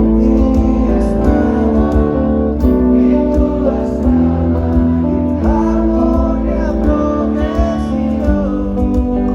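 Live band music led by guitar, with a voice singing over it.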